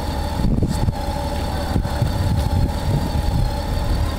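Honda Gold Wing's flat-six engine idling steadily, with a few dull knocks as the rider climbs off the bike about half a second in and again near two seconds in.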